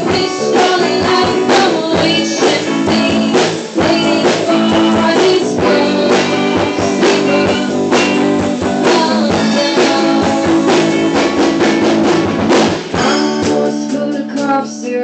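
A rock band playing, with guitars, bass guitar and a drum kit keeping a steady beat. About thirteen seconds in the drums drop away and the guitars carry on a little more softly.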